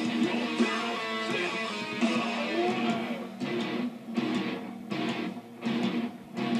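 Heavy metal music with a distorted electric guitar riff, turning into choppy stop-start chords from about halfway through.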